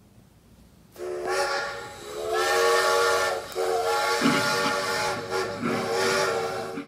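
Steam locomotive whistle sounding a chord of several tones over a hiss of steam: two short blasts, then a long one that cuts off sharply.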